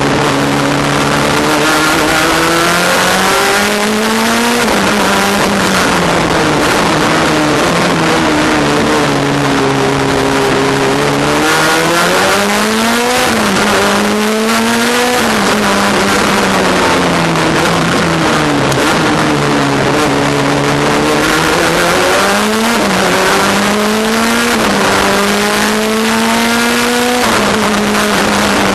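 Race car engine heard from inside the cockpit, revving hard through the gears. Several times the pitch climbs, dips briefly at a gear change, climbs again, then sinks away on the approach to a corner. A constant loud rushing noise runs underneath.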